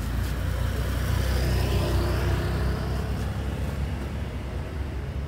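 Low rumble of a passing motor vehicle, swelling and fading between about one and three seconds in.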